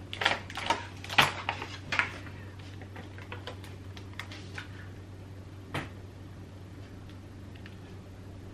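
Thin plastic peel-and-stick tile sheet and its silver backing crinkling and crackling as they are handled: a quick run of clicks in the first two seconds, then scattered light ticks as the sheet is pressed onto the wall.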